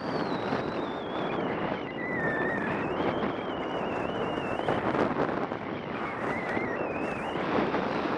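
Wind rushing over a skier's camera microphone and skis hissing over packed groomed snow during a steady downhill run, with a thin wavering whistle throughout.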